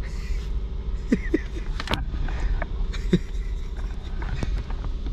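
Car engine running at a steady low hum, heard inside the cabin, with a few sharp clicks.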